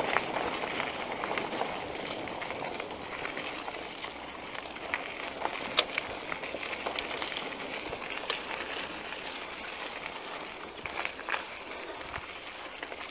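Caloi XRT mountain bike rolling over a dusty gravel road, its tyres and frame making a steady rolling noise with a few sharp clicks and rattles around the middle. At the start, a car ahead fades as it pulls away.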